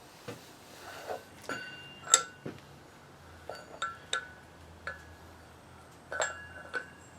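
Metal winch parts clinking and knocking together as they are handled, a string of sharp taps, some with a short metallic ring, the loudest about two seconds in.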